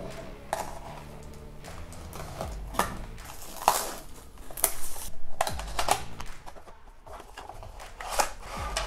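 Clear plastic shrink-wrap being torn and peeled off a small cardboard box, crinkling with irregular sharp crackles, along with the handling of the cardboard.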